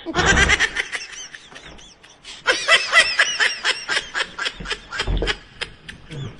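Someone laughing in quick giggling bursts, two runs of several bursts a second with a short pause about a second in. There are a couple of low bumps, one at the start and one about five seconds in.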